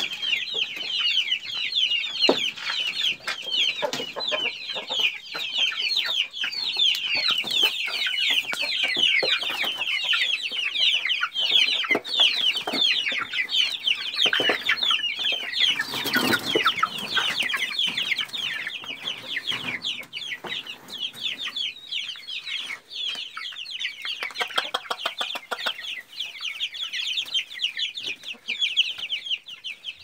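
Chicks peeping without a break: many short, high, falling peeps overlapping, with a few scattered knocks.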